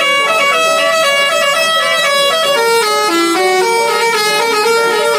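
Bus telolet horn, a multi-tone horn, playing a quick tune: notes change every fraction of a second, with several horn tones sounding together.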